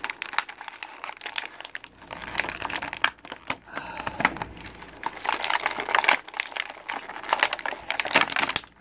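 Clear plastic packaging bag crinkling and crackling irregularly as hands pull an action figure out of it, loudest about six and again about eight seconds in.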